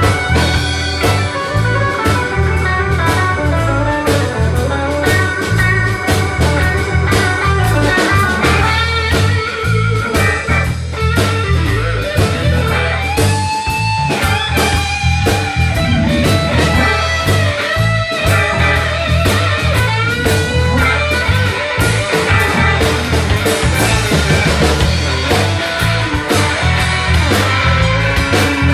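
Live blues-rock band playing an instrumental passage: a lead electric guitar line with bent notes over bass, drums and keyboard.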